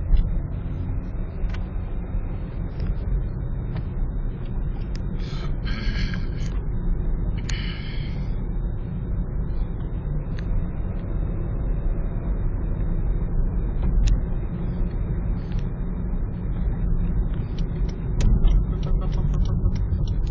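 Steady low rumble of road and engine noise inside a moving car. Two short hissing sounds come about six and eight seconds in.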